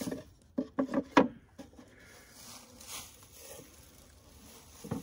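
Footsteps rustling through a deep layer of dry fallen leaves while a small wooden hedgehog house is handled, with a quick run of knocks and crunches about a second in and another thump near the end.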